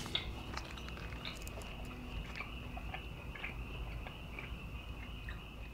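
A person chewing a mouthful of shoyu ramen, soft irregular wet clicks and smacks. A faint steady high-pitched whine runs underneath.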